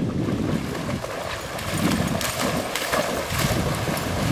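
A Newfoundland dog splashing as it bounds through shallow lake water, a run of uneven splashes strongest in the middle, over wind rumbling on the microphone.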